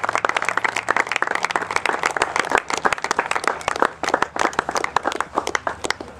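Applause: many hands clapping fast and dense, thinning out toward the end.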